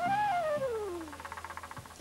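Flute in a live jazz-fusion band playing a note that swells slightly and then slides down by more than an octave, fading out, over low bass accompaniment.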